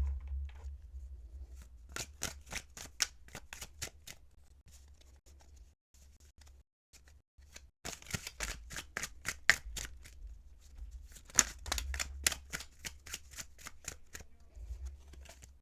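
A deck of thick-cardstock tarot cards being shuffled by hand: a quick run of card flicks and slaps, a pause of a few seconds, then a second, longer run.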